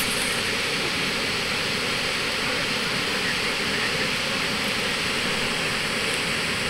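Steady rushing of river water pouring over a weir. A brief sharp click right at the start.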